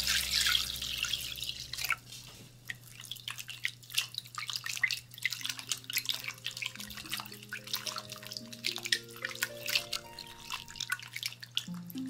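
Water poured into a glass bowl for about two seconds, then wet splashing and squelching as hands squeeze and knead rehydrating kanpyo (dried gourd strips) in the water, rinsing off the salt they were rubbed with.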